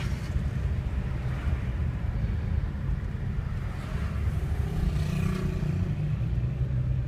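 Car cabin road noise while driving: the engine and tyres give a steady low rumble, heard from inside the car.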